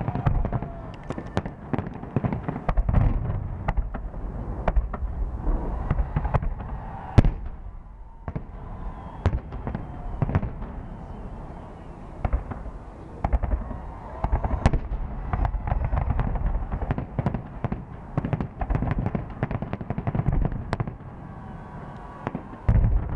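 Fireworks display: a rapid, irregular series of sharp bangs and booms over a continuous low rumble, with a brief lull about eight seconds in.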